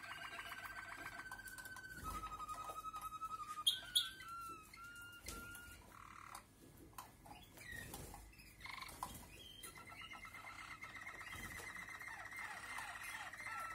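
Malinois (Waterslager) canaries singing low, rolled trills and pulsed song tours. About four seconds in come two sharper, louder notes. After a quieter, broken stretch, a long rolling trill starts at about ten seconds, with falling glides near the end.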